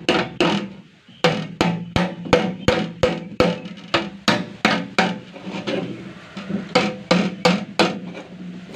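Repeated metal-on-metal strikes on the tin lid of a steel drum as a blade is driven in to cut it open, about three blows a second, each one ringing through the drum. There is a short pause about a second in, and the blows are softer in the middle.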